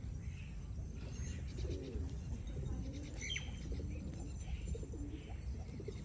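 A flock of domestic pigeons cooing, with repeated low, bending coos, over a steady low rumble. A short, high, falling call sounds a little after three seconds in.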